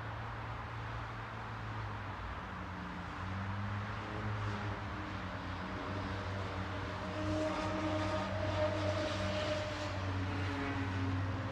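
A vehicle engine running with a steady low hum over background hiss. It gets a little louder in the second half.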